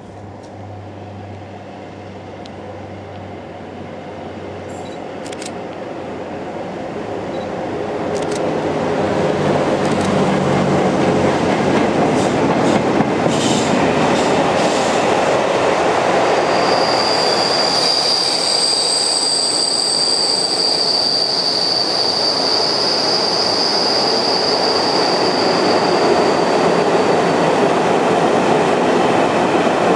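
Pair of Class 47 diesel locomotives, Sulzer twelve-cylinder engines, approaching with a low engine hum that grows louder over the first eight seconds or so. Then a long train of car-carrier wagons rolls past with steady wheel-on-rail noise, and a high, drawn-out wheel squeal rises in the second half and fades near the end.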